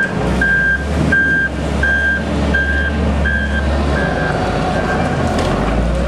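Volvo wheel loader's reversing alarm beeping steadily, about three beeps every two seconds, over the low running of its diesel engine; the beeps fade out after about four and a half seconds.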